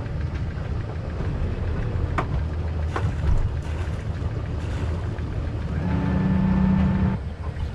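Sailboat's diesel engine idling with a steady low hum, with two sharp knocks about two and three seconds in. Near the end the electric anchor windlass whirs for about a second, hauling in the anchor chain that had wrapped around a rock on the bottom.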